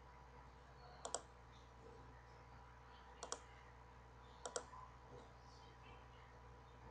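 Computer mouse clicking three times, each a quick double tick, over a faint steady hum.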